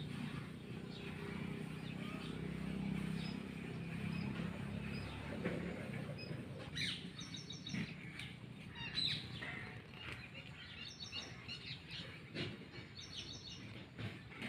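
Small birds chirping in short, quick runs of high notes, repeated several times, with a few sharp clicks. A low steady hum sits under the first six seconds or so.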